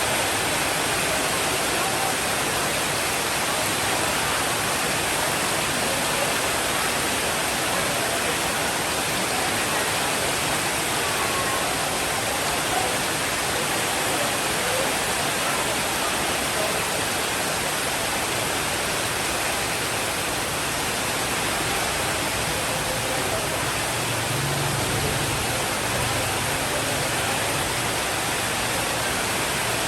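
Steady, even rainfall. About three quarters of the way in, a soft low rumble of distant thunder rises under it.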